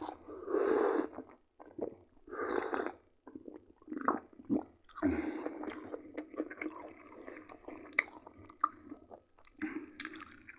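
Close-miked mouth sounds of a man sipping and swallowing strawberry fruit tea from a glass, mixed with chewing and small wet clicks and smacks.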